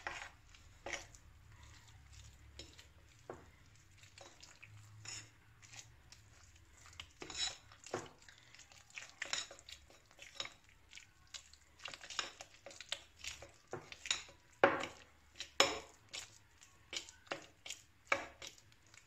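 A spoon clinking and scraping against a glass mixing bowl while stirring soft dough, in irregular knocks that come more often and louder in the second half.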